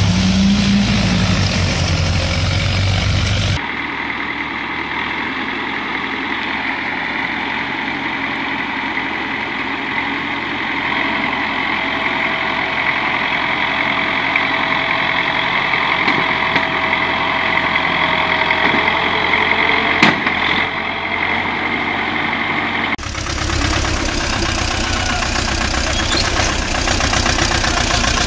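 Farm tractor engines running, in three stretches that cut abruptly about three and a half seconds in and again near the end. The middle stretch is quieter, with a steady high whine over the engine and a single sharp click.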